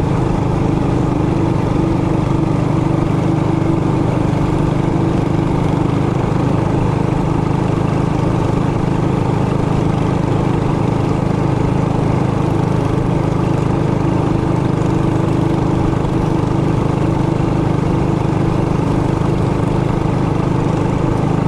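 Trailmaster Hurricane 200X mini bike's single-cylinder four-stroke engine running at a steady speed while being ridden, its pitch holding level with no revving.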